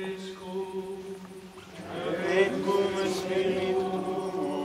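Liturgical chant: a single voice holds a steady sung note, then about two seconds in a crowd of voices joins in singing.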